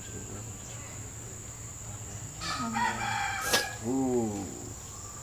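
A rooster crowing once, a call that rises, holds and then falls away, starting about halfway in. A single sharp click sounds in the middle of the crow.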